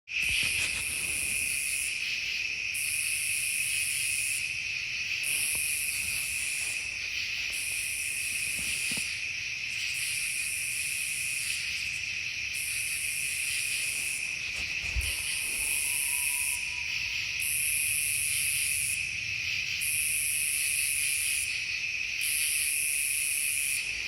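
Chorus of night insects: one steady high trill throughout, with a second, higher-pitched insect calling in bursts of about a second and a half, roughly every two seconds.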